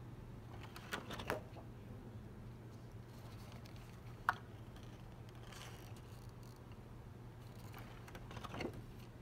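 Thick glossy card-stock pages of a spiral-bound wall calendar being flipped by hand: soft paper rustles and flaps, once about a second in and again near the end, with a single short sharp click about four seconds in. A steady low hum sits underneath.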